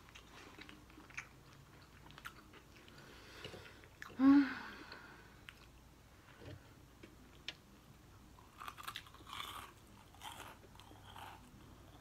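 Close-up chewing and biting into crunchy fried chicken, with scattered crisp crunches and mouth clicks that cluster in the last few seconds. About four seconds in comes a brief loud vocal sound.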